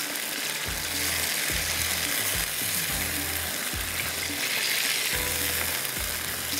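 Raw chicken pieces frying in hot oil in a pan, with a steady sizzle.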